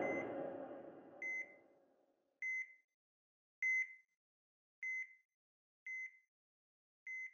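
Short electronic beeps, one steady tone each, repeating evenly about once every 1.2 seconds. The tail of a loud noise dies away in the first second or so.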